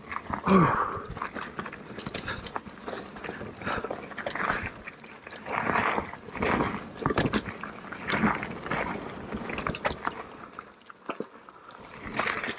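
Mountain bike rattling and clattering over rough singletrack with tyre noise, under heavy rhythmic breathing that comes in a surge every second or so.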